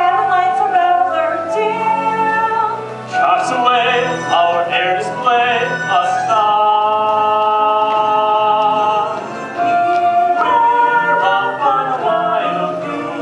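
Musical theatre song: voices singing over instrumental accompaniment, with a long held note about halfway through.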